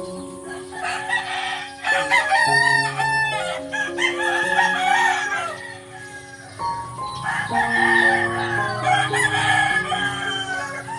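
Roosters crowing in long, wavering calls, over background music with a simple stepped melody.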